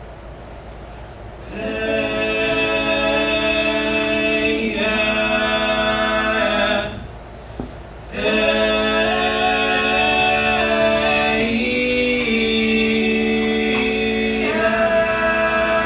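Men's a cappella group singing long, held chords without words. The first chord comes in about a second and a half in and breaks off near seven seconds. A second long chord follows a second later and moves to a new chord near the end.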